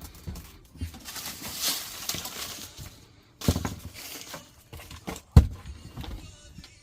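Work and handling noises: a stretch of rustling or scraping, then a few knocks, the sharpest and loudest about five and a half seconds in.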